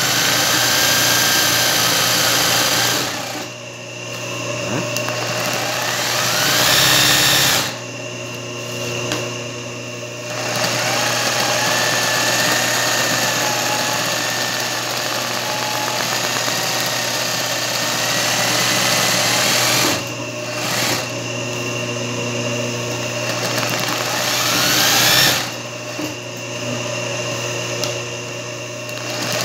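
Singer 20U zigzag sewing machine stitching free-motion embroidery in bursts. Its motor whine drops off several times as it stops and rises again as the machine speeds back up.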